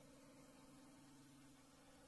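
Near silence: faint steady low hum under a soft hiss.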